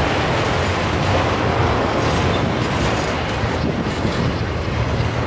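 Freight train's autorack cars rolling past: a steady rumble of steel wheels on the rails.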